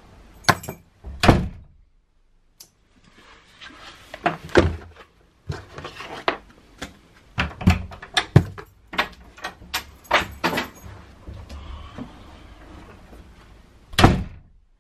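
Handling noises: a string of knocks, clicks and thumps from objects being moved and set down. Near the end comes one loud thud of a door being pulled shut.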